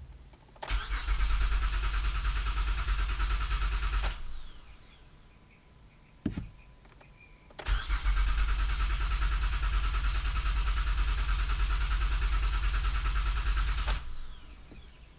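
2008 Honda Odyssey's 3.5-litre V6 being cranked by the starter twice, about three and a half seconds and then about six seconds, each attempt cutting off suddenly without the engine catching: a no-start. A click sounds between the two attempts.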